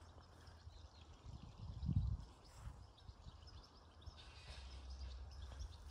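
Faint garden ambience with distant birds chirping, and low rumbling thuds on the microphone, the strongest about two seconds in.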